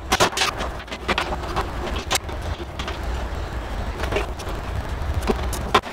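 Irregular clicks, knocks and rattles of network cables being handled and fitted at a patch panel inside a metal server cabinet, over a steady low rumble that drops away near the end.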